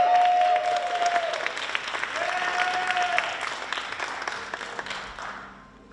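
Audience applauding, with two long held shouted cheers from the crowd, one at the start and one about two seconds in. The clapping dies away toward the end.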